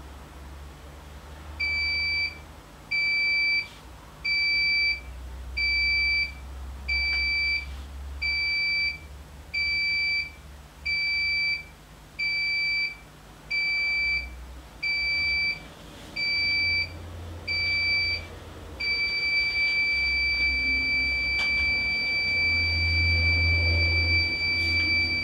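Grainfather control unit's electronic buzzer sounding a high beep about once a second, more than a dozen times, then going over to one continuous tone: the alert that the wort has reached boiling temperature.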